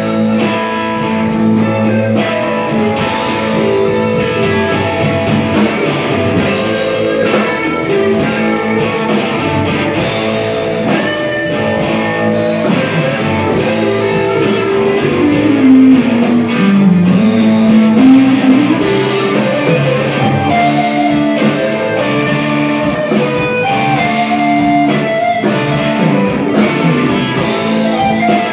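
Live blues band playing: electric guitars, bass and drums. Near the middle, a low line slides down in pitch and back up.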